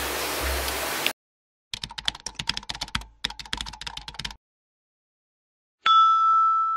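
A steady hiss cuts off about a second in. It is followed by a computer-keyboard typing sound effect: rapid clicks in two runs of about a second and a half each. Near the end comes a single bright ding that rings on and slowly fades.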